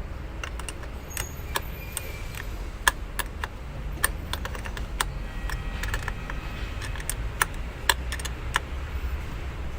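Irregular sharp metallic clicks and taps from hand tools working on a car battery's new terminal clamps, over a low steady rumble.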